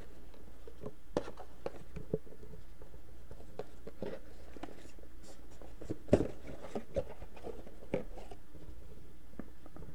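Hands handling a cardboard box and its packed accessories: scattered light knocks, taps and rustles, the sharpest knock about six seconds in.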